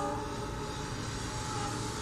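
A WDG3A diesel locomotive's several-tone horn cuts off just at the start, then sounds again faintly about a second in, over a steady low rumble. The horn is being blown repeatedly for signal clearance.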